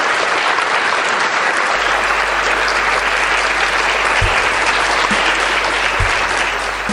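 Audience applauding steadily. A low steady hum joins about two seconds in, with two short low thumps later on.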